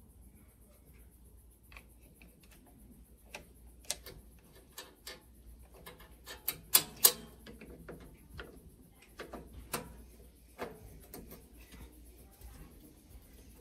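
Irregular light clicks and taps of hands working on the plastic and metal parts of a gas grill's front control panel, with two sharper clicks about seven seconds in.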